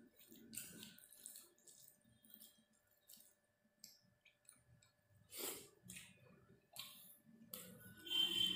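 Fingers mixing rice with chicken curry gravy on a steel plate: soft wet squishing and scattered clicks, with a louder noise about halfway through and another near the end.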